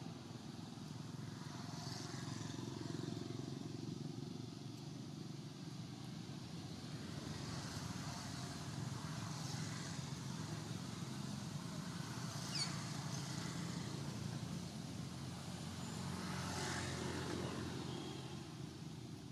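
Steady hum of a running motor-vehicle engine. A brief high squeak falls in pitch about twelve seconds in.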